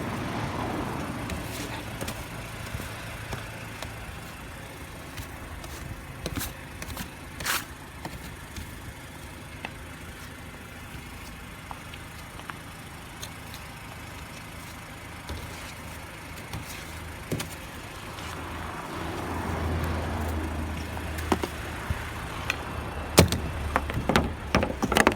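Car engine idling with a steady low hum that grows louder late on, with scattered clicks and knocks.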